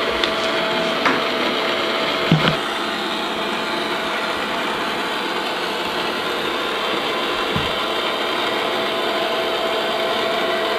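Verefa V60 M Pro robot vacuum running after being sent back to its dock to recharge: a steady whir with a constant hum. A few light knocks come about a second in, just after two seconds, and near three-quarters through.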